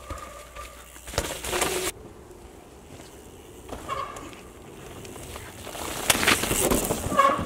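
Mountain bike tyres skidding and tearing through loose loam on a steep dirt trail, in two loud scraping rushes, about a second in and again near the end, with a brief buzzing tone from the bike about four seconds in.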